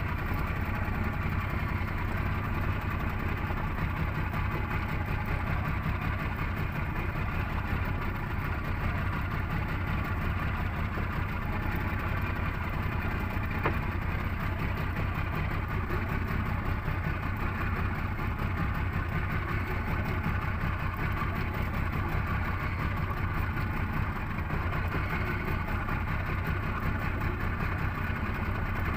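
30 hp outboard motor running steadily.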